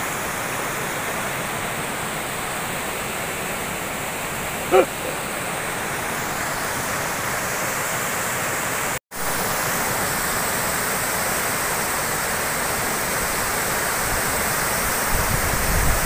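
Steady rushing roar of a tall waterfall crashing into its rocky pool and stream. A short vocal sound breaks in once about five seconds in, and the sound cuts out for an instant just past halfway.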